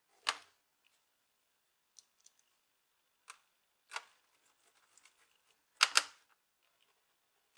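Sharp, scattered clicks and taps of a small screwdriver and screws against a laptop's plastic casing as screws are set and fastened. The loudest is a pair of clicks in quick succession about six seconds in.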